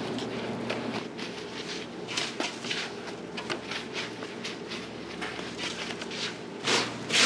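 Coarse salt crunching and rustling in irregular scrapes as gloved hands press and rub mullet roe sacs into a metal basin of salt, the salting stage of making dried mullet roe, over a steady low hum. A louder scraping rush comes near the end.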